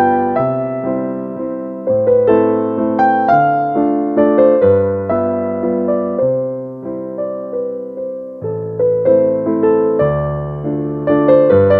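Background piano music: a gentle melody of struck notes over sustained bass notes.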